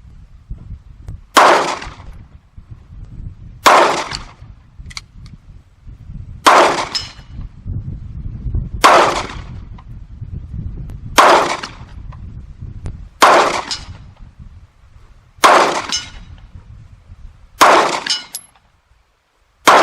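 FN 509 9mm pistol fired eight times in slow, aimed succession, about one shot every two and a half seconds, each report trailing off in a short echo.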